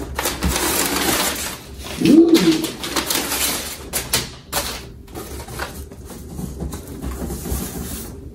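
Crinkling and rustling of brown kraft-paper packing and cardboard flaps as a large shipping box is opened and its padding pulled away, with a few light knocks. A short hummed 'hmm' that rises and falls comes about two seconds in.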